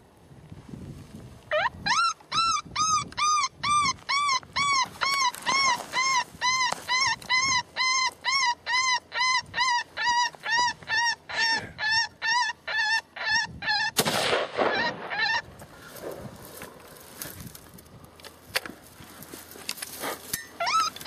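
Rabbit distress predator call: a rising squeal, then a fast, regular run of high, wavering cries, about two a second. About fourteen seconds in a rifle shot rings out and the cries stop, starting again with a rising squeal near the end.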